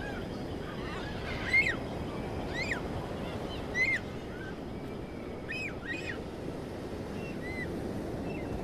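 A bird calls about six times at uneven intervals, each a short call that rises and falls in pitch, over a steady low rush of wind and surf.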